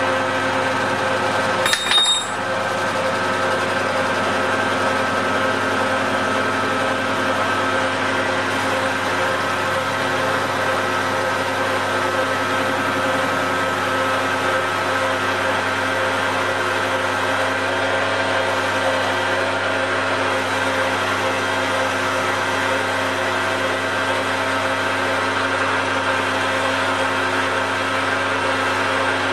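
Metal lathe running steadily under power, its motor and gear train giving a constant hum, as a parting tool machines the flange of a steel pin. A short sharp clatter with a brief ring about two seconds in.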